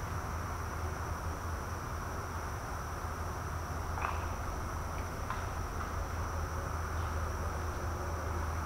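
Night insects trilling at one steady high pitch over a low steady rumble, with a few faint ticks around the middle.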